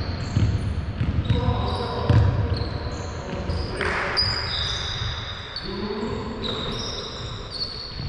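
Basketball bouncing on a hardwood court in a large echoing gym, with frequent short high sneaker squeaks and players' shouts.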